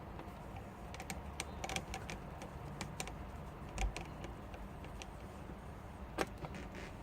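Light irregular clicks and ticks of a small Phillips screwdriver working the screws out of a laptop screen's metal mounting tags, with a soft knock partway through.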